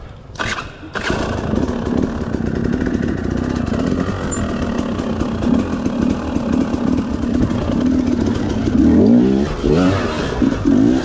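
Off-road motorcycle engine running at low revs, picking up about a second in, then revved hard twice near the end as the bike climbs onto a pile of giant tyres.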